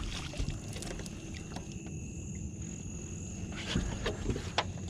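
A steady high-pitched drone of night insects, with a few scattered knocks and scuffs from people moving gear on a boat's deck, the sharpest one near the end.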